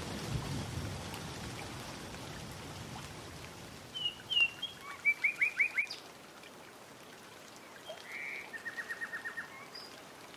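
A songbird singing two short phrases: a few chirps and then a quick run of about five clear notes about four seconds in, and a faster trill of about eight notes about eight seconds in, over a faint steady hiss like light rain.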